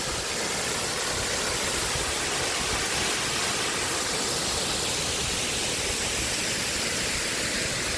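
Steady rushing of water pouring through the dam gates below Wilson Dam, an even, unbroken hiss.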